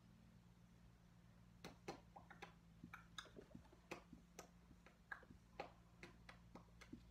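Faint, irregular ticks and taps of marker tips on paper as blindfolded drawers sketch, several a second, starting about a second and a half in, over a low steady room hum.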